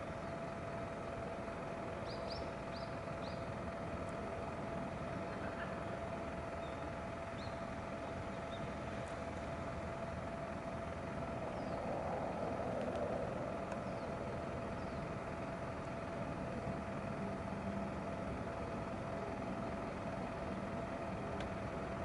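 Steady distant engine drone with a constant mid-pitched hum, swelling briefly about halfway through. A few faint high chirps come about two to three seconds in.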